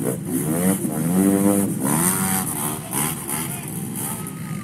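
Side-by-side UTV engine revving up and down as it pushes through deep, muddy water, with a steady hiss over it.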